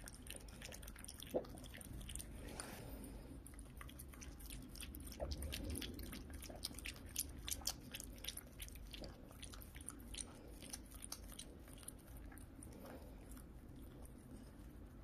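Shiba Inu lapping up milk: a quiet run of quick, irregular wet clicks from its tongue and mouth.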